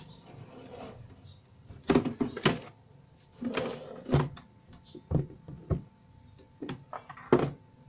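Plastic rear cabinet of a CRT television being handled and pulled off: a series of irregular knocks, thuds and short scrapes, the loudest about two seconds in and again near the end.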